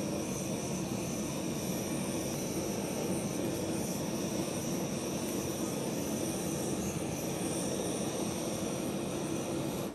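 Handheld kitchen gas torch burning with a steady rushing flame as it sears the skin of kinmedai (golden-eye snapper) slices.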